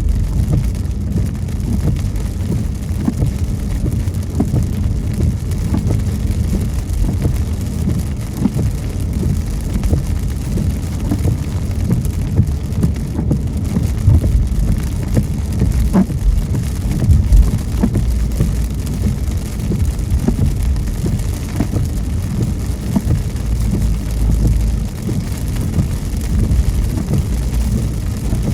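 Raindrops tapping on a moving car's windshield and roof, scattered irregular ticks over a steady low rumble from the car on the road.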